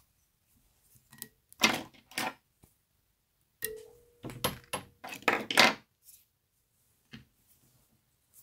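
Fly-tying handling noise at the vise: two clusters of short clatters and knocks from tools and materials being handled and set down, with a brief ringing tone under the second cluster.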